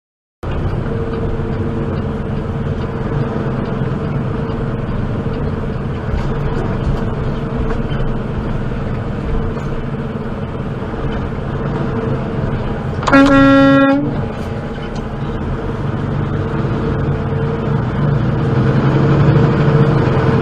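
Steady engine and road drone heard inside a truck's cab in slow traffic. About two-thirds of the way through, a single loud horn blast lasts about a second.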